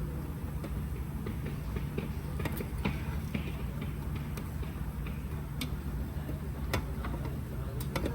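Scattered sharp clicks and taps of hand tools on metal, a few seconds apart, over a steady low hum of shop background.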